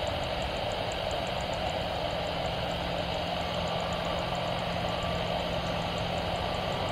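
Boeing 747-400 freighter's four jet engines running steadily at taxi power as the aircraft rolls slowly along the runway, a constant engine noise with a low hum underneath.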